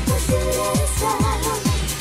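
Electronic dance music with a steady four-on-the-floor kick drum, about two beats a second, under a synth melody.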